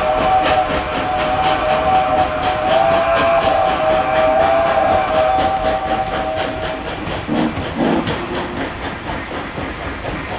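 O scale model passenger cars rolling past, their wheels clicking steadily over the track joints, with a model train's sound system blowing a long two-note whistle that stops about seven seconds in.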